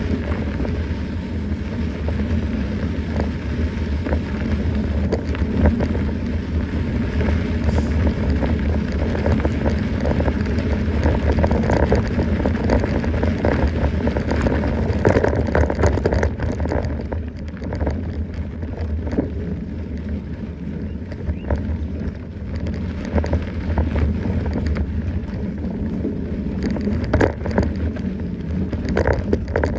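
Mountain bike ridden along a trail: wind rushing over the microphone with a steady low rumble, and the tyres and bike rattling and knocking over rough ground.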